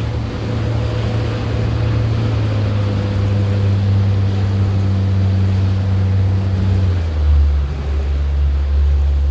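Motorboat engine running steadily with a low hum, its pitch dropping about seven seconds in as it is throttled back, over the rush of water.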